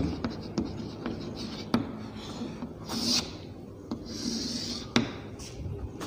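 Chalk writing on a blackboard: a few sharp taps of the chalk, and two longer high scrapes, one about three seconds in and one just after four seconds, as lines are drawn across the board.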